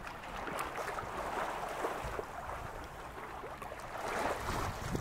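Small waves on a lake lapping and splashing close by, a steady crackly wash, with some wind rumble on the microphone.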